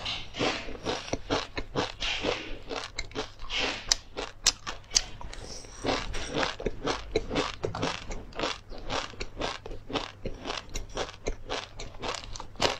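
Close-miked chewing of a crunchy seed snack: a dense run of dry, sharp crunches, several a second.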